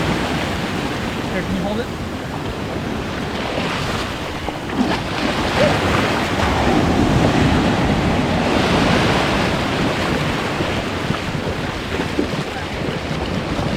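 Surf breaking and washing up a beach, with wind buffeting the microphone; the noise swells and eases from wave to wave.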